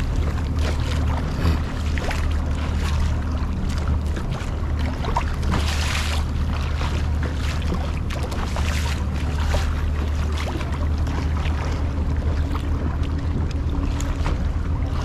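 Boat engine running steadily with a low drone, with wind noise on the microphone.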